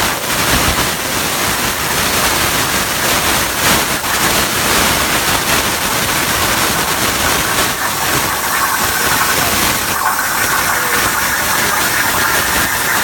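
CNC plasma cutting torch cutting, a loud steady hiss of the plasma arc and air jet, with a higher band of hiss joining in about two thirds of the way through.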